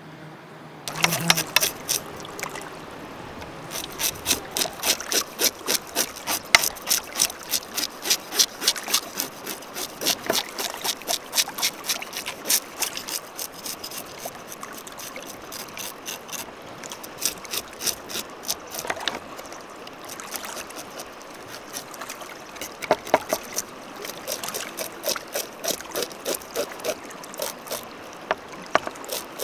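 Water splashing in a quick regular rhythm, about two splashes a second, over a steady background rush of water. The splashing starts about a second in.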